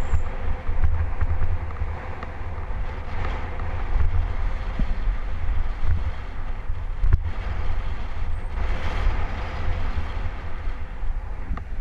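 Wind buffeting the microphone of a cyclist's camera while riding downhill on a road bike, a heavy fluttering rumble over a steady rush of tyre and road noise. A single sharp knock comes about seven seconds in.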